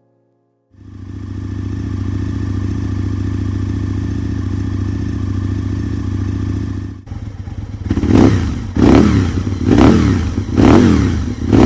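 Aprilia RSV Mille R's 998 cc V-twin engine idling steadily, then blipped on the throttle about four times, roughly once a second, each rev rising and dropping back.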